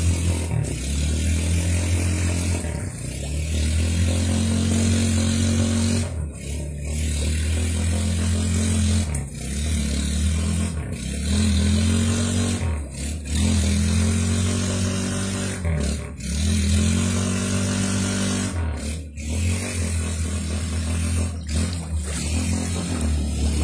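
Motorcycle engine running while the bike sits submerged in a stream, revved up and eased off every few seconds, with the water churning around it.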